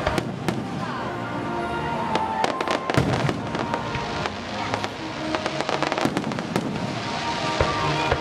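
Aerial fireworks shells bursting, with irregular bangs and crackling throughout and the loudest bang about three seconds in, over background music.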